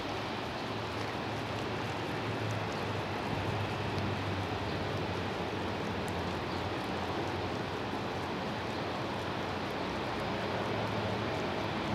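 Steady outdoor background noise: an even hiss with a low hum beneath it and a few faint ticks.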